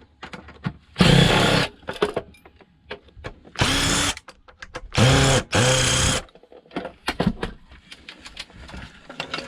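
Power drill-driver run in four short bursts, each spinning up with a rising whine, the last two back to back: driving out screws while dismantling scrap electronics. Light metallic clicks and knocks of parts being handled come between the bursts.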